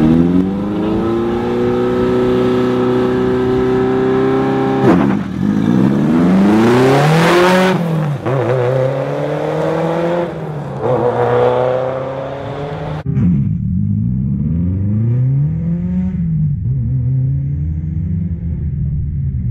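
Subaru Impreza WRX STI rally car's turbocharged flat-four engine at high revs on a gravel stage, its pitch rising and falling repeatedly through gear changes and throttle lifts. About two-thirds of the way through it drops suddenly to a quieter engine, still revving up and down.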